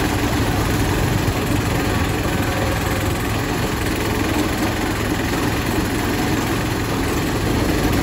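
Motor-driven sugarcane juice press running steadily, its rollers crushing cane stalks as they are fed back through.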